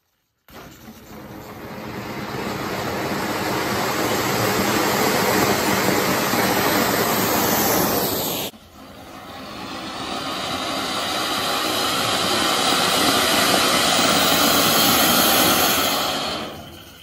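A Diwali anar (flowerpot firework) taped to a toy auto rickshaw burning with a loud, steady rushing hiss that builds over several seconds. It breaks off sharply about halfway through, then builds again and fades near the end.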